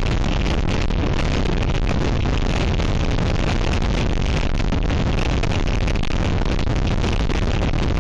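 Gale-force wind blowing over an outdoor nest-cam microphone: a loud, steady rush of wind noise, heaviest in the low end.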